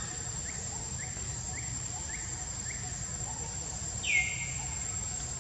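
Forest ambience: a steady high-pitched insect drone, with a bird's short rising chirp repeated about twice a second. About four seconds in, a loud high call slides down in pitch and holds for about a second.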